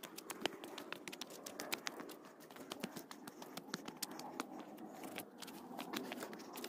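Footsteps crunching along a hiking trail: a quick, irregular run of sharp crackles and scrapes underfoot.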